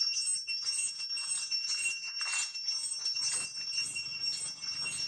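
Cicadas droning: a steady, high-pitched ringing chorus that pulses a few times a second.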